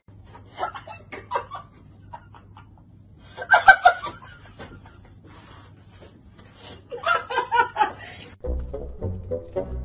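A woman laughing in short, broken bursts, loudest about three and a half seconds in and again around seven seconds. Music with low, steady tones starts near the end.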